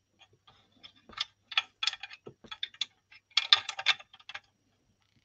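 Plastic clicks and knocks of a small action figure being pushed and wedged into the tight cockpit of a plastic toy helicopter: a run of quick taps, busiest about three and a half seconds in.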